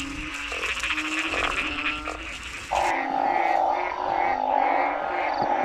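Chorus of frogs calling, repeated low croaks overlapping one another. A steady higher hiss starts suddenly about three seconds in and carries on under the calls.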